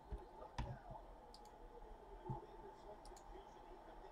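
A few faint, scattered clicks of a computer mouse over a faint steady hum.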